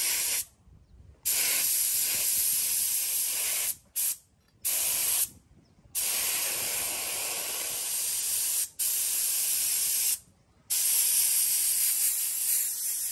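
Gravity-feed compressed-air spray gun spraying a mist, a loud steady hiss in long bursts of about one to four seconds, cut off abruptly each time the trigger is released for half a second or so, five or six times over.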